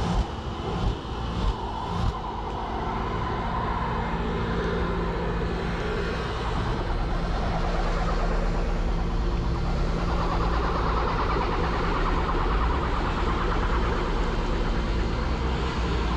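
Car engine running under throttle as a car stuck in deep snow is rocked forward and back, its wheels spinning in the snow. A few knocks come in the first two seconds.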